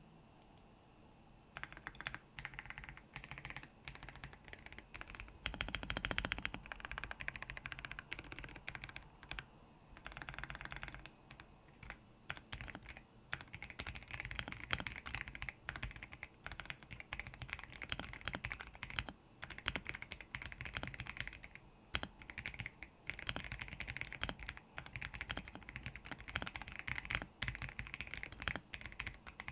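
Typing on a Royal Kludge R75 mechanical keyboard fitted with lubed RK Brown tactile switches: a quick, continuous patter of keystrokes with brief pauses, starting about a second and a half in.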